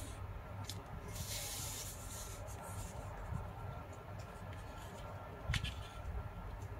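A square sheet of origami paper being handled and folded by hand: soft rustling and sliding of paper, with one sharp crisp click about five and a half seconds in, over a low steady hum.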